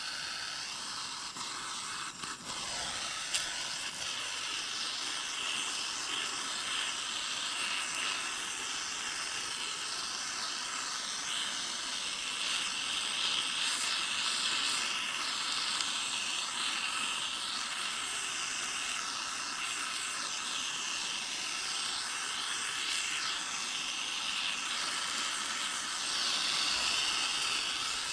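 Portable gas-cartridge torch burning with a steady hiss, singeing the remaining down off a freshly plucked drake. There are a couple of light clicks about two to three seconds in.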